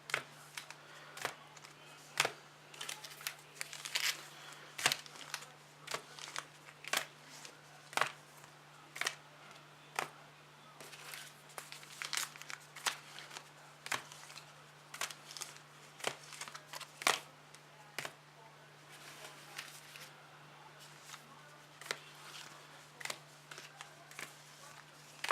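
Foil trading-card pack wrappers crinkling as the packs are handled and sorted, with many quick taps and clicks as packs are set down on one another, over a steady low hum.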